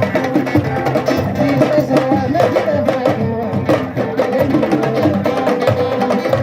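Music with hand drums and other percussion playing a steady rhythm over pitched instruments.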